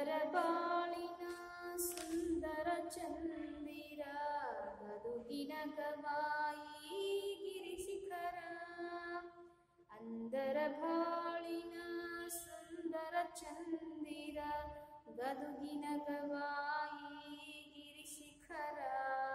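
A woman's solo voice singing a Kannada poem unaccompanied, in long held, wavering notes. She sings in phrases of about four to five seconds with short breaths between them.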